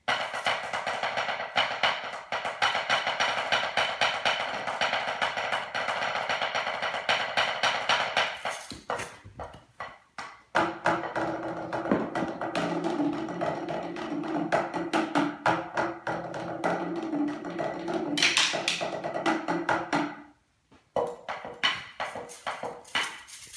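Percussion practice: rapid, dense stick strokes on a drum or practice pad for about the first nine seconds, then mallets playing pitched notes on a keyboard percussion instrument from about ten to twenty seconds, followed by a few scattered hits.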